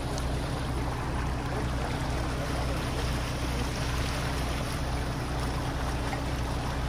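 Pond water rushing steadily through a freshly dug drainage ditch as the pond drains, with a steady low engine hum underneath.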